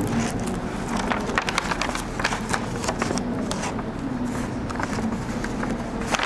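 Stiff paper chart crackling and rustling as it is pressed flat and fixed against a chalkboard, many short crisp crackles over a steady background noise.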